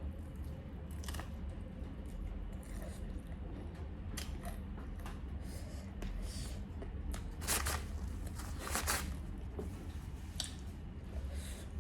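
Someone eating close to the microphone: a string of short crunching and tearing sounds from bites and chewing, loudest about seven and a half and nine seconds in.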